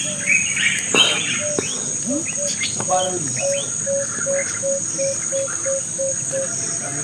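Insects (crickets or cicadas) droning steadily at a high pitch, with birds chirping and calling. From about three seconds in, a bird repeats a short low note about three times a second for some three seconds.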